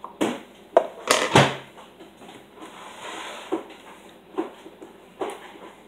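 Kitchen bowls and utensils being handled and set down: a quick run of knocks and clatters in the first second and a half, then three more single knocks about a second apart.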